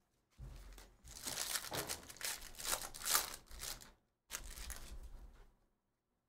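Foil wrapper of a Panini Donruss basketball hobby pack being torn open and crinkled by hand, in several crackly bursts over about three seconds, followed by a quieter rustle.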